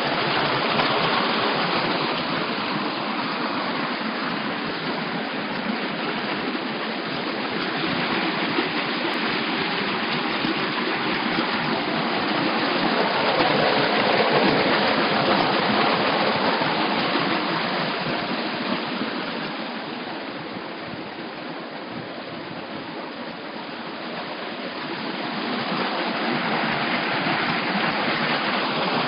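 Rain-fed stream rushing over rocks: a continuous, even rush of water that dips a little about two-thirds of the way through.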